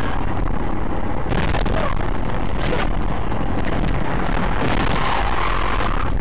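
Steady road and engine noise inside a moving car, with a heavy low rumble, as picked up by a dashboard camera's microphone.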